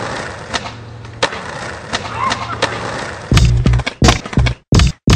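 Skateboard wheels rolling on pavement with an even rumble, clicking over joints about every second and a half. About three seconds in, loud, choppy music with heavy bass cuts in, stopping and starting abruptly.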